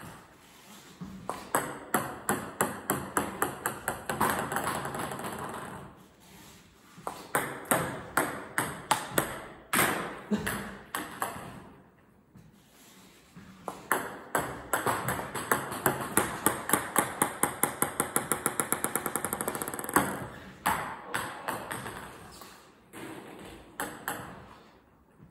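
Table tennis ball bouncing on the table in several runs, the bounces coming quicker and quicker each time as the ball settles.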